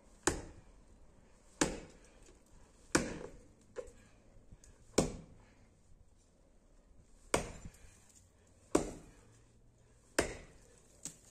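Axe chopping into birch roots in the soil around the stump: about seven heavy blows a second or two apart, with a longer pause midway. The roots are being cut so that the stump can be pulled out.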